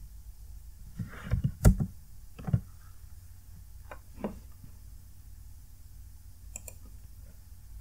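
Computer keyboard keystrokes: a quick cluster of key presses about a second in, then single taps a few seconds apart and a couple of light clicks near the end, over a low steady hum.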